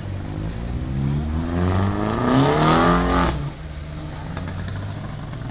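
Race-prepared Mini's engine revving up and climbing in pitch as it accelerates out of a hairpin, with a rushing hiss at its loudest, then falling away abruptly a little over three seconds in, leaving a lower steady engine hum.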